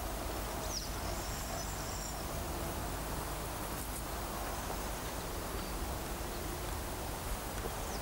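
Faint insect chirping over a steady background hiss and low rumble, with a few brief high-pitched chirps about a second or two in.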